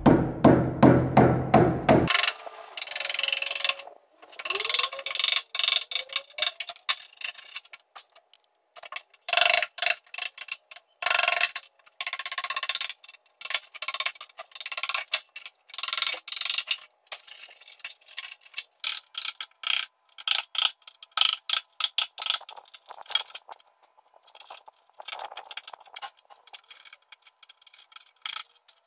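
Mallet blows on a chisel, knocking the bark off the live edge of a raintree slab, with the bark cracking and splintering away. The strikes come in quick, uneven runs broken by short pauses.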